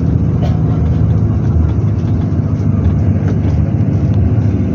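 Steady low rumble of a shuttle bus's engine and running gear, heard from inside the bus cabin.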